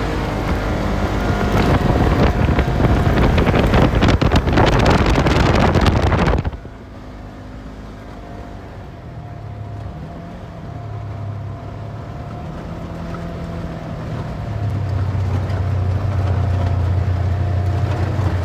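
Off-road vehicle engine running hard with a rushing noise for about six seconds, then cutting abruptly to a quieter, steadier engine note that shifts in pitch now and then and grows louder near the end.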